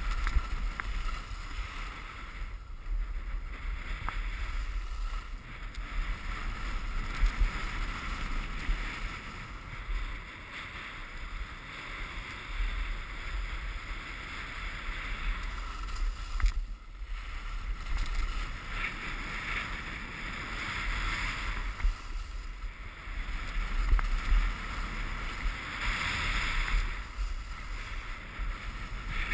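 Wind rushing and buffeting on the camera's microphone during a descent on snow, over a steady hiss of sliding on snow, gusting louder and softer with a brief lull about halfway.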